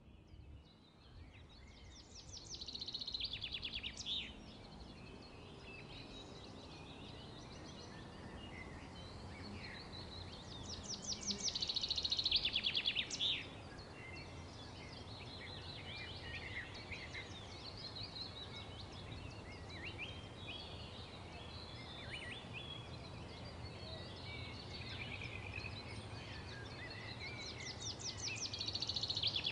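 Birds singing over a low steady background noise. A rapid trill, each lasting a second or two, comes three times, the last near the end, with scattered short chirps in between.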